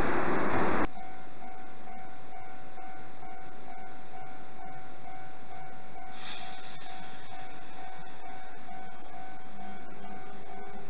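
Nankai 2000 series electric train running, loud for about the first second, then breaking off suddenly. After that a Japanese railway level-crossing warning bell rings, an electronic tone repeating evenly, with a brief hiss about six seconds in.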